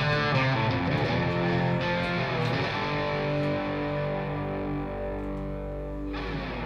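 Background music: changing chords in the first few seconds, then one long held chord from about three seconds in that breaks off shortly before the end.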